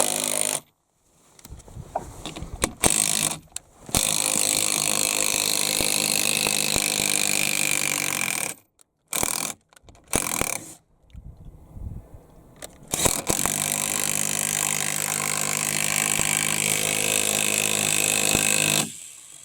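Power drill running in two long runs of several seconds each, with short bursts and clicks between them, as bolts are driven into a wooden post.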